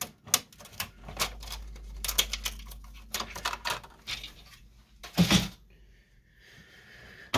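Rapid plastic clicks and rattles as a plastic piece is unclipped and pulled from an HP ENVY 5660 inkjet printer's housing, with one louder short sound about five seconds in.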